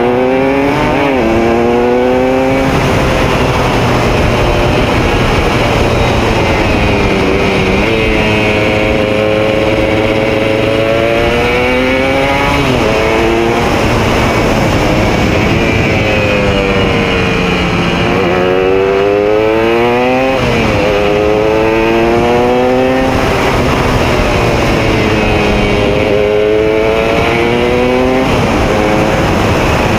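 Classic racing motorcycle engine heard from on board at full race pace, its pitch climbing as it accelerates through the gears and dropping sharply several times as the rider shuts off for corners, with a steady rushing noise underneath.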